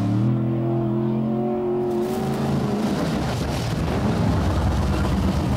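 A 600-horsepower trophy truck engine running hard at speed. Its pitch climbs gently over the first two seconds, then breaks into a rougher, noisier stretch, and a steady engine tone returns near the end.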